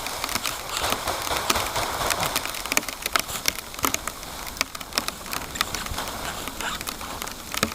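Rain pattering steadily, with many irregular sharp ticks of drops striking close by.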